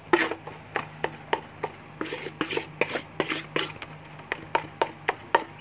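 A utensil scraping and knocking against a stainless steel basin as thick cream is stirred and spread around it: an irregular run of short scrapes and taps, a few each second, some with a brief metallic ring.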